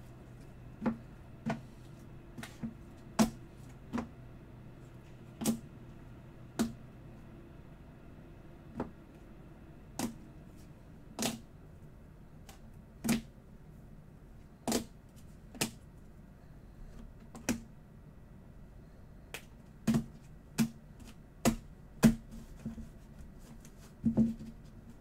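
Hard plastic trading-card holders clicking as they are set down one at a time onto stacks on a table: single sharp clicks at an uneven pace of roughly one a second, coming closer together near the end.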